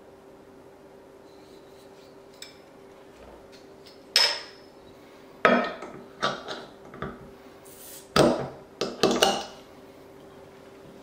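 Metal bottle caps being popped off glass beer bottles with a homemade wooden bottle opener pressed down on the cap, with clinks of glass and metal. Sharp clacks come about four seconds in, again around five and a half, and in a cluster around eight to nine seconds, over a faint steady hum.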